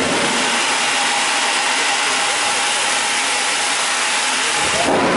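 Steam locomotive standing at the platform and venting steam: a loud, steady hiss.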